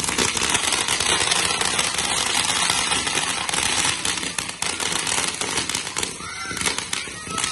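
Ground fountain fireworks spraying sparks: a steady crackling hiss dotted with many small pops, loudest in the first half and easing off later. Voices call out near the end.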